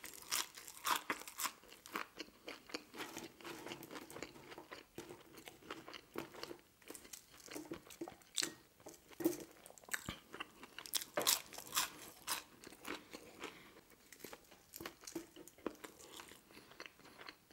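A person chewing and biting ketchup-dipped French fries, with a string of irregular crunchy, wet mouth clicks.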